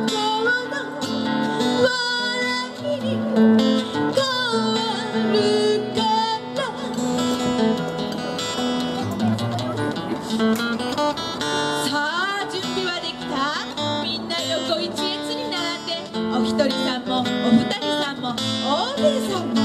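A woman singing, with an acoustic guitar accompanying her.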